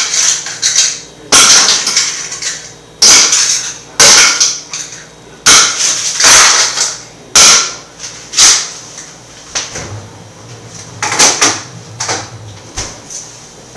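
A series of loud, sharp knocks and clatters, about one a second, thinning out and getting quieter after about nine seconds: hard kitchen items being banged or knocked against each other.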